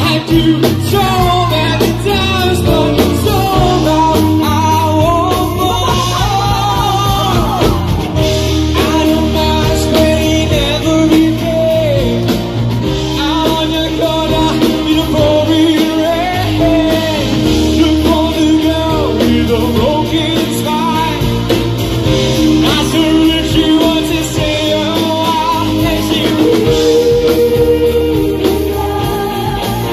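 Live band performing a song: male and female singers sing over electric guitar and drums.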